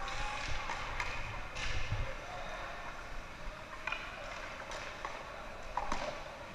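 Hockey sticks and a puck clacking on the ice during youth hockey play: several sharp knocks at irregular intervals over a steady rink din.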